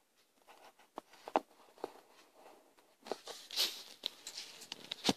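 Handling noise from plastic toy pony figures moved about in hand close to the camera: scattered light taps and clicks, with a longer rustle about three and a half seconds in.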